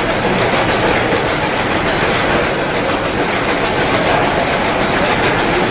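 Large vintage stationary engine running close by: a loud, steady, fast mechanical clatter.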